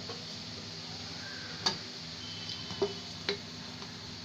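Sliced onions sizzling steadily in hot oil in a metal pan, stirred with a wooden spatula that knocks against the pan three times in the second half.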